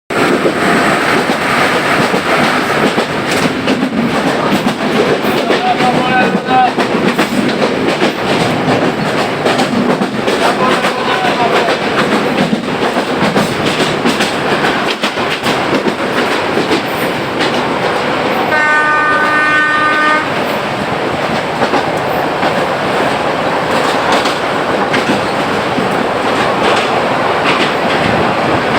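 Moving train running with a continuous rumble and clatter of wheels on track. A little past halfway a train horn sounds once for about a second and a half.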